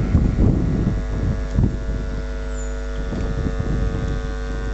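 Gusty rumble of wind on the microphone for the first second or two, then a steady electrical hum made of several level tones that carries on unchanged.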